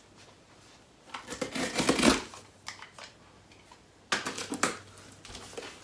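A cardboard shipping box being opened: packing tape slit and torn and stiff cardboard flaps pulled apart, in a longer, louder burst about a second in and a shorter one about four seconds in, with light scrapes and clicks between.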